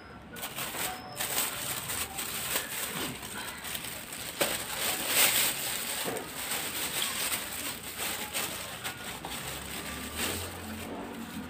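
Rustling and handling noise as a person leans over to reach for something while holding a phone, with scattered soft knocks and cloth shuffles. A low hum comes in near the end.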